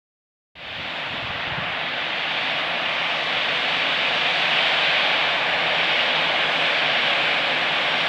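Airbus A320 jet engines running at taxi power: a steady rushing hiss that cuts in about half a second in and slowly grows louder.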